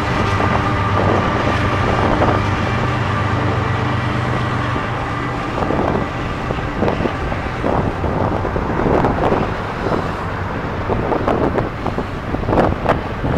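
Canadian Pacific diesel locomotive passing with a steady engine drone, which fades after about five seconds into the rumble and repeated clatter of double-stack container cars' wheels rolling over the rails.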